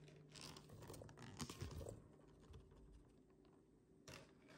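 Near silence with faint small clicks and rustles, mostly in the first two seconds, as berries are handled and tipped together.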